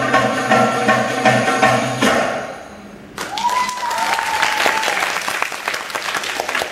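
Belly-dance music with percussion plays, then fades out about two to three seconds in. Audience applause then breaks out, with a high drawn-out cheer above it.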